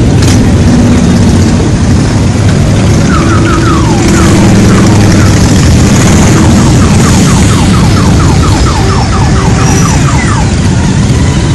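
A group of motorcycles running and pulling away one after another, a loud continuous engine rumble. From about three seconds in to near the end, a rapid series of short repeated beeps sounds over it.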